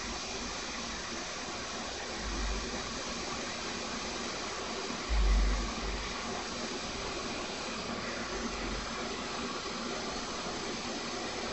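Hot-air rework station blowing a steady hiss while it heats a replacement chip onto the circuit board to melt its solder balls. A low bump comes about two and a half seconds in and a louder one about five seconds in.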